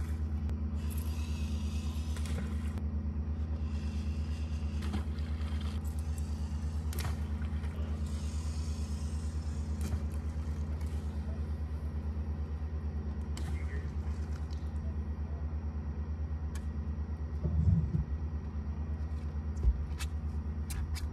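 A motor running with a steady low hum and a fast, even pulse, with a few light knocks and a louder thump near the end.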